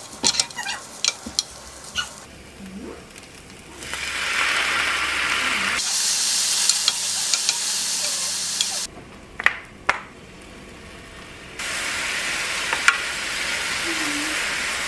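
Vegetables and strips of food sizzling in a small square frying pan while a spatula stirs and scrapes them, with sharp spatula clicks against the pan. The sizzle comes in two long stretches, with clicks and scrapes between.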